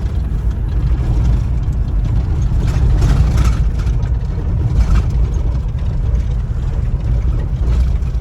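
Steady low rumble of a vehicle travelling on the road, with brief swells of hiss about three and five seconds in.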